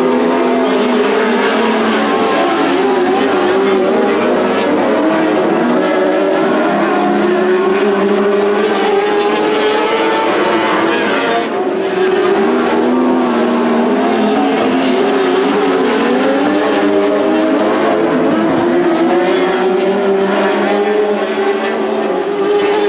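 Several winged sprint cars racing on a small dirt oval, their engines running hard together, with the engine notes rising and falling over one another as the cars lap.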